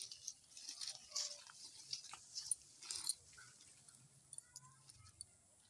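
Dry leaves crackling and a leafy elephant-apple branch rustling as it is handled and set down on leaf litter, in irregular bursts of small crackles.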